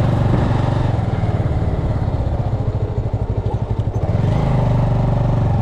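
Bajaj Avenger 220's single-cylinder engine running with a steady low pulsing note that weakens and wavers for a second or two around the middle, then settles back to steady.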